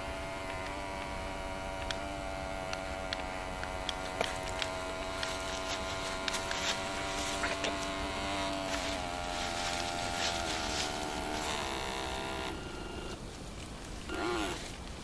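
The small electric motor of a ProBoat BlackJack 9-inch RC catamaran whines steadily under load as it pushes a disabled RC boat. The whine eases off about twelve seconds in, and a short wavering tone follows near the end. Faint clicks are scattered throughout.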